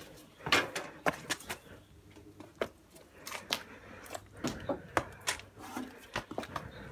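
Irregular footsteps, shoe scuffs and hand slaps on concrete from people scrambling over a ledge and hurrying along a paved passage, with close knocks and rubbing from handling the camera. The sharp strokes come several times a second in uneven bursts.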